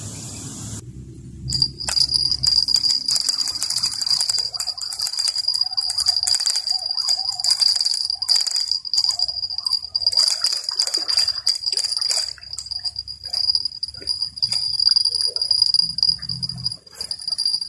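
Steady high-pitched insect drone, with many irregular clicks and rattles over it. The drone starts about a second and a half in.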